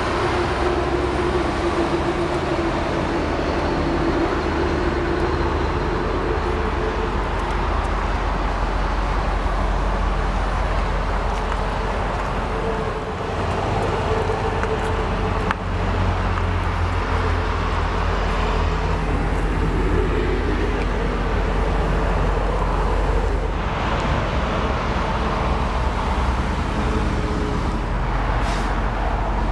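1987 Mercedes-Benz 560SL's 5.6-litre V8 idling steadily, a low even rumble heard from beside the car.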